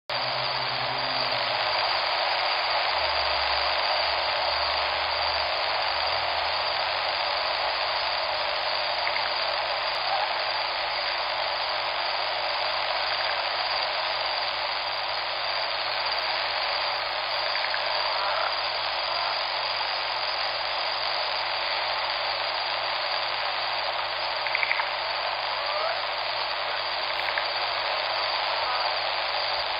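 Steady rush of flowing river water, with a few faint short chirps now and then.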